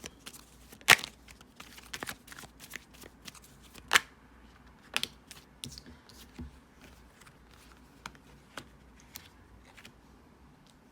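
Tarot deck being shuffled by hand: a run of short card snaps and slaps, with two sharper ones about a second in and about four seconds in, thinning out near the end.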